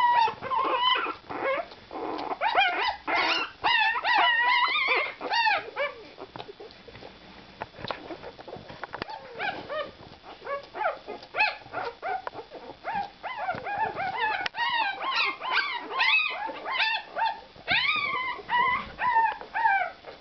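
Four-day-old puppies whimpering and squealing in quick runs of short, high cries that rise and fall in pitch, thinning out to occasional squeaks in the middle stretch before picking up again.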